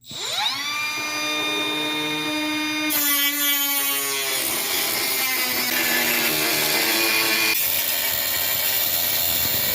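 A cutoff wheel spins up within half a second to a steady high whine. From about three seconds in it cuts into the Integra's sheet-metal body, adding a harsh, hissing grind over the whine.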